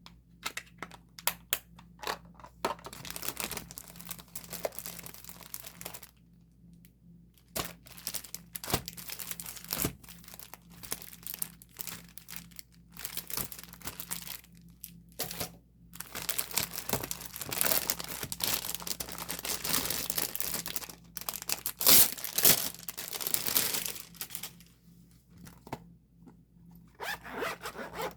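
Thin plastic crinkling and rustling as it is handled, in irregular bursts with short pauses and a few sharp clicks.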